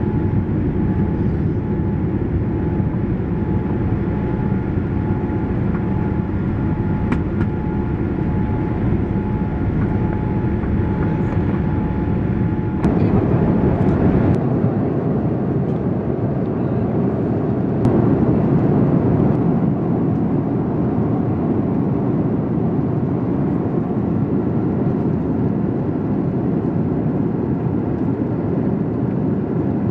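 Steady cabin noise inside a Boeing 787-8 with its Rolls-Royce Trent 1000 engines running. About 13 seconds in, a steady hum stops and the rushing noise grows louder, with a few faint clicks.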